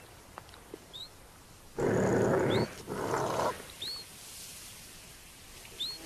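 Leopard growling in two harsh bursts about two seconds in. Behind it, a bird repeats a short rising chirp about once a second.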